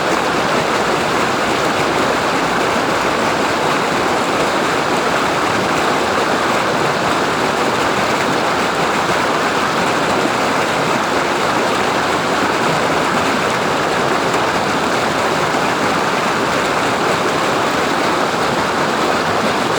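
Waterfall: water falling and rushing in a steady, even roar-like hiss with no breaks.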